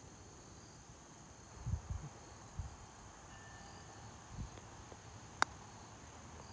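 A single sharp click of a putter striking a golf ball about five and a half seconds in, over a steady high chirring of crickets. A few soft low thumps come earlier.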